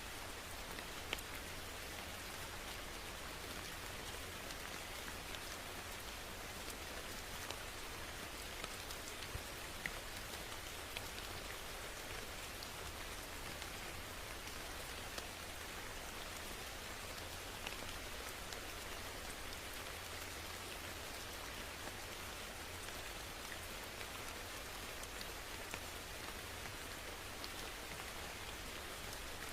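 Steady rain falling, an even hiss with scattered individual drops ticking on a surface.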